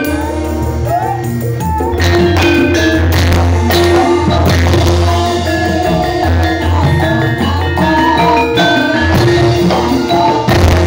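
Music: short struck melodic notes and percussion over a steady deep bass, playing continuously.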